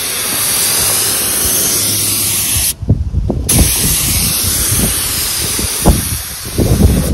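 Gravity-feed air spray gun hissing as it sprays base coat, with the trigger let off for under a second about three seconds in before spraying resumes. Wind gusts rumble on the microphone underneath.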